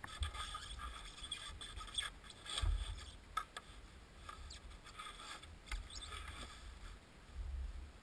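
Canoe scraping, rubbing and knocking in the shallows at the river's edge: scattered short scrapes, with dull thuds about a third of the way in and again near the end.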